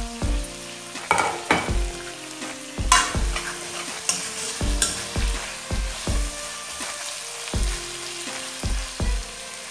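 Chicken frying and sizzling in oil in a steel wok as a spatula stirs it, with several loud scrapes of the spatula against the pan in the first half. Background music with a steady beat plays underneath.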